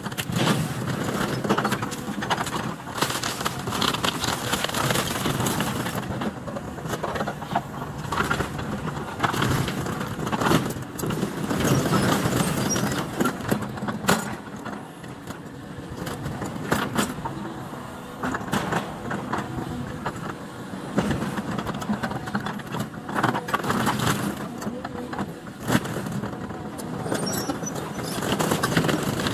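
Caterpillar excavator's diesel engine running under load while its bucket picks through demolition rubble, with repeated clanks and crashes of steel, wood and sheet metal being grabbed and dropped.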